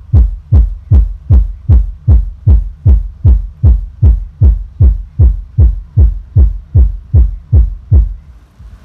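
Stacked subwoofer cabinets loaded with Sweton 18PT1500 drivers playing a deep bass kick pattern, about two and a half thumps a second, each thump dropping in pitch. The beat stops shortly before the end.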